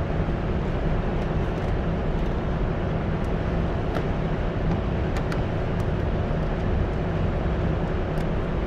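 Steady background din of an underground car park: an even low rumble and hum that does not change. A few faint clicks come through it about four to five seconds in.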